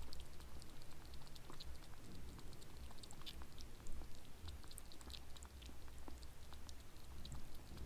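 Kitten licking and eating from a ceramic bowl: a run of small, quick, irregular tongue clicks, several a second.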